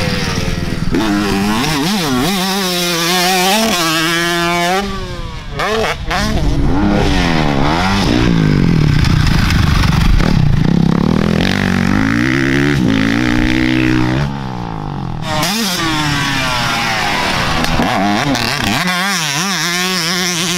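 Yamaha YZ125 two-stroke dirt bike engine, fitted with a new exhaust, revving hard and falling off again and again as it is ridden, its pitch climbing and dropping with throttle and gear changes.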